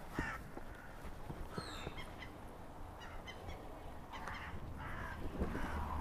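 Crows cawing in harsh alarm calls at intervals: the flock mobbing a fox that has caught one of them.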